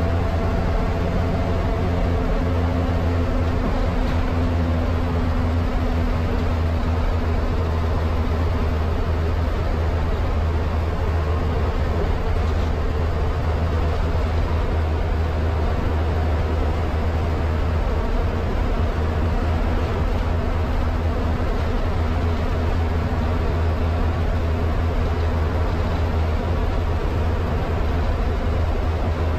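Steady low rumble of an MSRTC bus's diesel engine and tyre and road noise, heard from inside the bus while it cruises at an even speed on a concrete highway.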